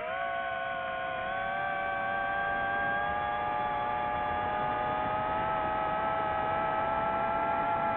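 Multirotor drone's motors and propellers whining in flight: a steady hum of several tones that slowly creeps up in pitch.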